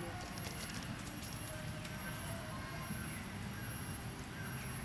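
Outdoor background of a steady low rumble and a thin, high, steady whine, with a run of small clicks in the first two seconds and a few faint short chirping calls.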